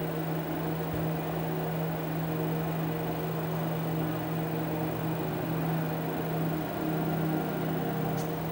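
Steady electronic drone: a strong low hum with a few fainter steady higher tones over a hissing noise, unchanging throughout, with a brief faint high chirp near the end.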